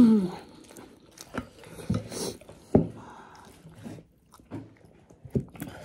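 Close-up eating sounds: chewing a mouthful of chicken biryani, with a few short clicks of a plastic spoon against the plate.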